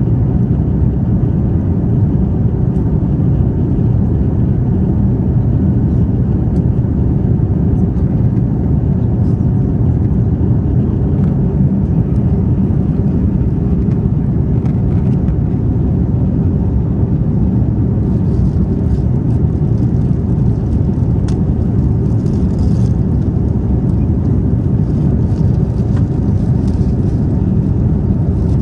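Steady low rumble of a jet airliner's cabin in flight, engine and rushing-air noise heard from a window seat, even and unbroken.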